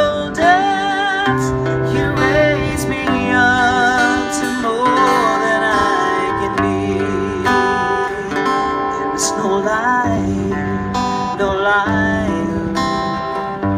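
A woman singing held, wavering notes with vibrato while strumming an acoustic-electric guitar, both amplified through a PA system.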